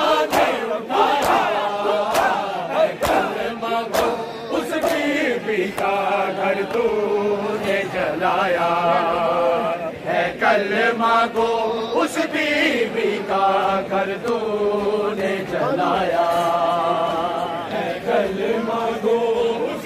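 Men chanting an Urdu noha (Shia mourning lament) together in chorus, with sharp hand slaps of chest-beating (matam) keeping time, about one to two a second and thickest in the first few seconds.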